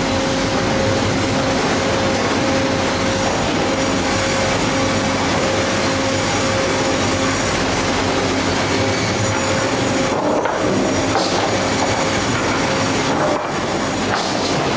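Sawmill chain transfer deck running: a loud, steady rattle and clatter of the conveyor chains with a steady hum. Near the end come a few knocks as boards drop onto the deck.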